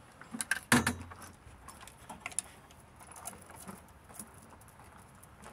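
Lifting chain clinking and rattling on an engine hoist holding a pulled engine, with scattered small metal clicks and one loud metal clank under a second in.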